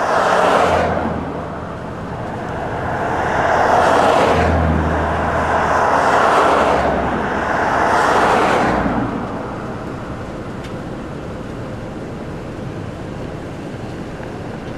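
Vehicles passing close by on a freeway, four swelling and fading whooshes of tyre and engine noise in the first nine seconds, the middle ones with a heavier low rumble, like a truck. After that a steady, quieter rush of background noise.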